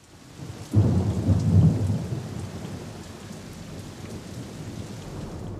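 Ocean surf: a wave breaking with a deep rumbling crash about three-quarters of a second in, then settling into a steady rushing wash.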